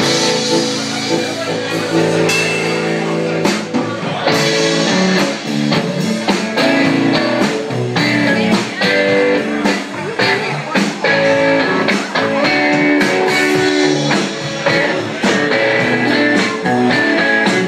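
Live rock band playing an instrumental passage with a blues-rock feel: electric guitars over a drum kit, with steady drum hits.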